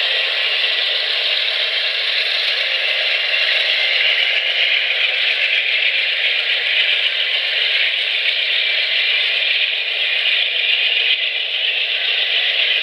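Amtrak passenger train's cars rolling slowly past, a steady rattling noise without any bass, as heard through a thin webcam microphone.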